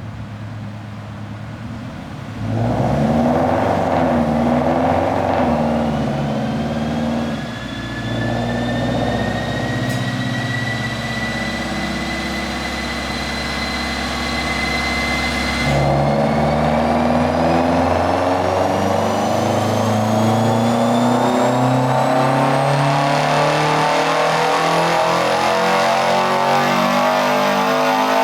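Car engine running quietly at first, then getting loud about two and a half seconds in and accelerating hard. A high whine climbs with the revs; both drop at a gear change about sixteen seconds in, then climb again.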